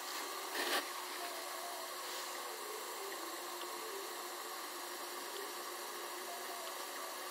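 Potter's wheel running steadily with a low mechanical hum as it spins, with one short knock about half a second in.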